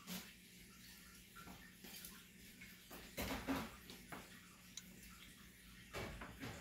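Faint handling sounds as a power cable is worked loose by hand: a few soft rustles and clicks, loudest about three seconds in, over a faint steady low hum.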